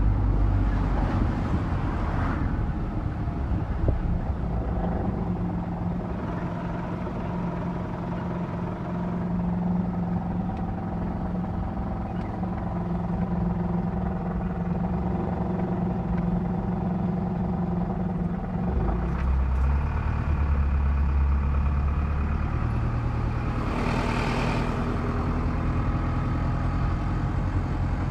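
Engine and road noise heard from inside a moving vehicle: a steady hum with a few held engine tones. A deeper rumble comes in about two-thirds of the way through, and a short rushing swell follows a few seconds before the end.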